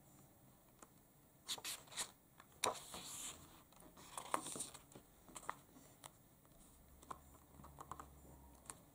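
A page of a paperback picture book being turned by hand. The paper rustles and crinkles in short bursts through the first half, followed by a few softer rustles as the pages settle.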